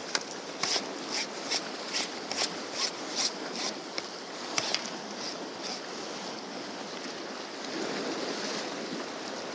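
Surf washing against the rocks below, with wind. Over the first five seconds or so comes a run of light, evenly spaced clicks, about two or three a second, while a fish is brought into a landing net.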